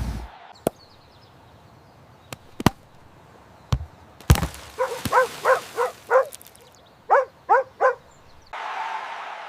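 An animal's short pitched calls: four in quick succession, then three more, each with a quick bend in pitch. Several sharp separate clicks or knocks come before them.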